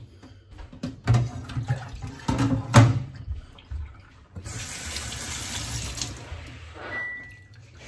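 A few knocks of plastic bowls and a colander being handled in a stainless steel sink, then a kitchen mixer tap running for about two seconds, rinsing raw prawns in the colander.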